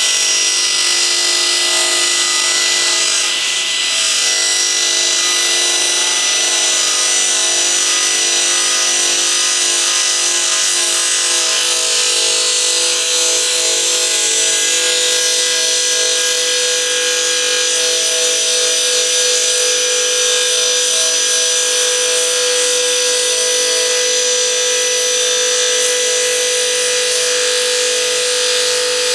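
Old table circular saw running steadily while a wooden batten is fed through the blade, a loud whine of several held tones, one of them growing stronger about halfway through.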